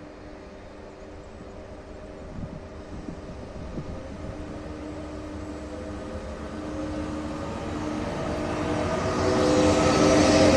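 ČD class 162 electric locomotive drawing closer with a steady electric hum made of several tones, slowly rising in pitch and growing much louder toward the end.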